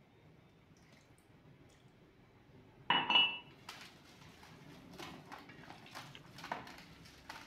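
Steel plate clanking and scraping on a hard floor as hands mix fish pieces in marinade. After a quiet start, a loud clank with a brief ring about three seconds in, followed by a run of lighter clinks and knocks.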